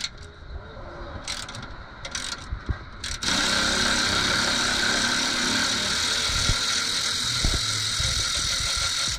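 Power ratchet on a long extension backing out a seat-track bolt: a few clicks and knocks, then about three seconds in the ratchet starts and runs steadily for about six seconds.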